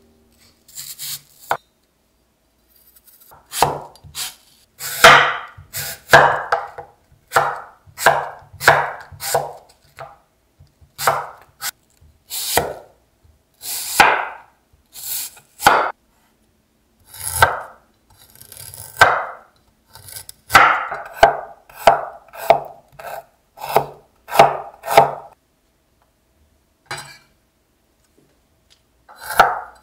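Kitchen knife slicing a raw apple into thin slices on a wooden cutting board: a run of separate cuts, roughly one a second, with a short pause near the end.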